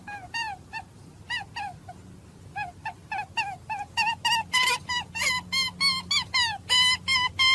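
A rapid series of short chirping animal calls, each dropping in pitch. They are sparse at first, then come faster and louder from about four seconds in.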